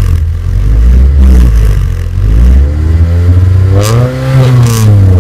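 Car engine free-revving through a Magnaflow muffler. The revs drop back to a low rumble at the start, then climb again about two and a half seconds in, hold briefly at the top against the rev limiter, and fall away near the end.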